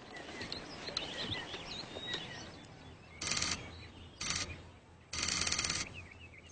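Birds chirping in the background, then three short bursts of hissing noise, the last and longest lasting under a second.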